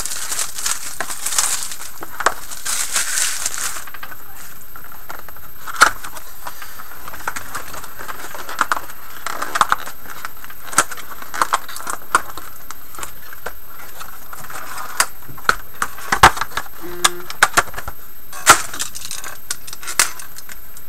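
A sealed box of Panini Select hockey cards being opened by hand: a crinkling of plastic wrap being torn off in the first few seconds, then scattered taps and clicks of the cardboard box and card packs being handled.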